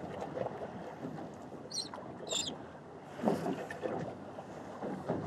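Open-air ambience aboard a fishing boat: a steady wash of wind and water noise, with wind on the microphone. Two short high-pitched chirps come about two seconds in.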